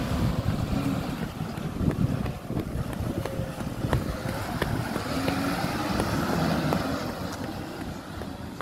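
Garbage truck engine running as the truck drives away, its pitch rising and falling and its sound fading steadily. Wind buffets the microphone, and there are scattered sharp clicks and knocks.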